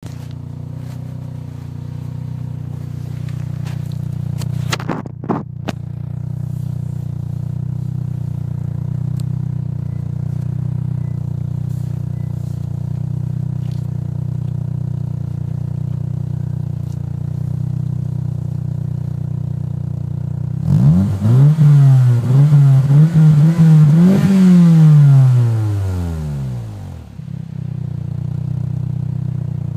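Saab 9-3 Aero 2.0T's turbocharged four-cylinder heard through an aftermarket TimOFFey exhaust, idling steadily. About two-thirds of the way through it is revved up in a few quick blips for several seconds, then drops back to idle. There are a few sharp clicks about five seconds in.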